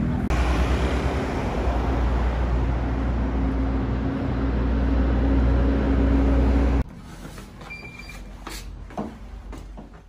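Street traffic with a city bus passing close, a loud steady rumble of engine and tyre noise, which cuts off abruptly about two-thirds of the way in. Quieter street ambience with a few faint clicks follows.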